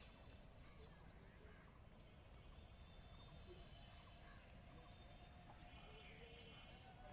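Near silence: faint outdoor background with a low rumble, a few faint ticks, and a faint high call about six seconds in.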